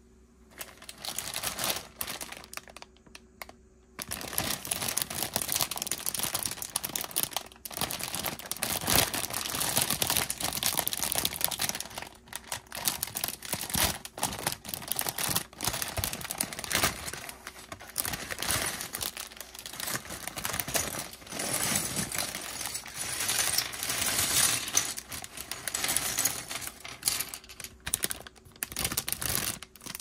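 Crinkly clear plastic Lego parts bags being handled and torn open, with hard plastic bricks clicking and clattering together as they are emptied out onto a wooden desk.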